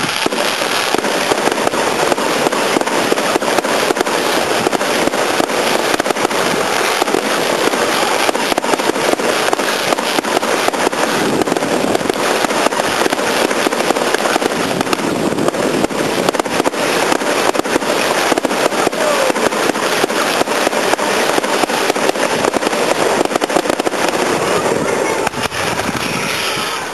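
Ground-launched fireworks going off in a continuous, loud, dense crackle of countless rapid small pops over a steady hiss, with no break.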